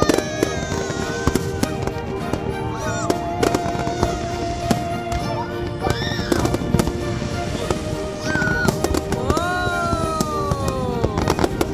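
Aerial fireworks shells bursting in rapid succession, a dense run of sharp bangs and crackles, with music playing underneath. A few tones slide down in pitch, the longest near the end.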